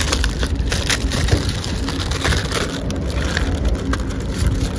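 Irregular crackling and crunching as fresh rosemary sprigs are snapped and handled over the ribs, over a steady low rumble.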